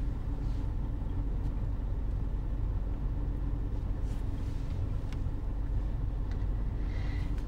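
Steady low rumble of an idling car, with a faint steady hum above it.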